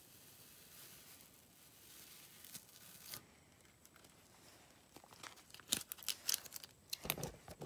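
Blue painter's tape being peeled off a sticker on a freshly painted steel mower deck and crumpled, giving faint tearing and crinkling, with sharper crackles bunched in the last few seconds.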